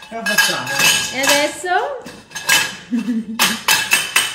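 Metal tubes of a wheeled frame clanking and rattling against each other and the stone floor as they are handled, a string of sharp knocks with a thin metallic ring.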